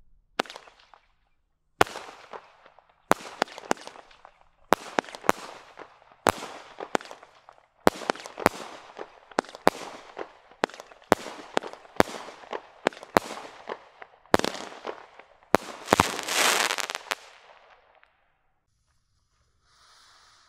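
Multi-shot firework cake firing a rapid series of shots, about one to two a second, each bang trailing into crackle, with a louder, longer crackling burst near the end of the barrage. Just before the end a ground fountain starts to hiss as it sprays sparks.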